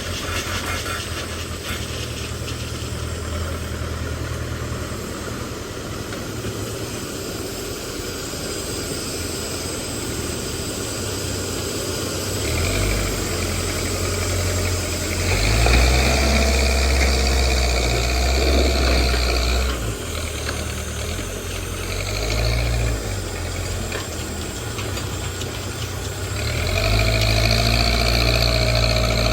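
Backhoe loader's diesel engine running, revving up under load several times: briefly about 12 seconds in, harder from about 15 to 19 seconds, and again from about 26 seconds to the end.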